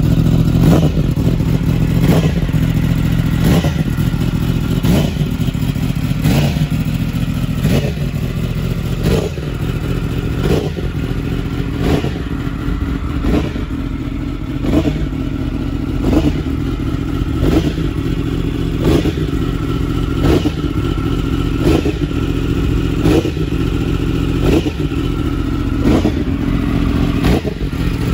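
Yamaha R1M's crossplane inline-four running through an Akrapovic exhaust in auto warm-up mode, holding a steady idle to bring the engine up to temperature. A short, sharp pulse breaks through the idle about every second and a half.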